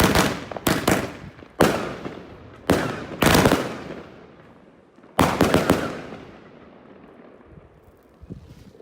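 Fireworks from an Original Pro Box 3 assortment going off in a series of loud bangs, each trailing off in echo. A quick cluster of several bangs comes about five seconds in, then the reports die away.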